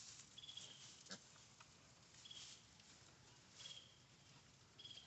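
Near silence: faint outdoor background with a short, high, thin peep repeating about every second and a half, and a faint tick about a second in.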